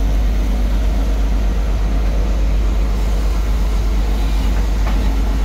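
Marsh buggy excavator's diesel engine running at a steady working rumble as the long-reach boom moves, with a brief knock near the end.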